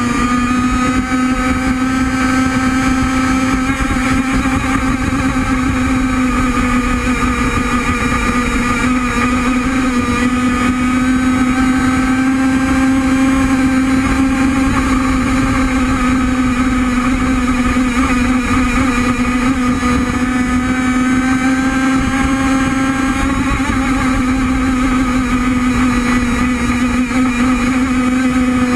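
The Enforcer Stingray RC hydroplane's small two-stroke engine, heard from on board, runs hard at high revs and a steady pitch after a slight rise in the first second. Water spray hisses off the hull underneath the engine.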